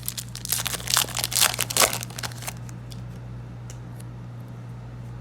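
Foil booster-pack wrapper crinkling and tearing for the first two and a half seconds, then only a low steady hum.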